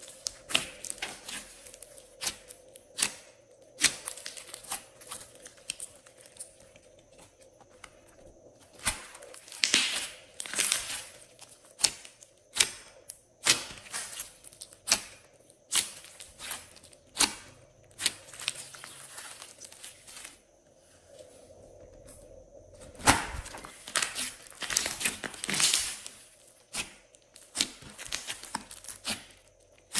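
Hands kneading, squeezing and stretching a large lump of glossy slime, giving dense, irregular sticky crackles and clicks as it pulls apart and folds, in louder clusters when it is pulled hardest.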